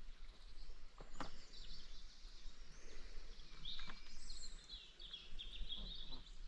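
Songbirds chirping and singing faintly, strongest in the middle of the stretch, over a low steady background hum, with a few soft clicks in the first three seconds.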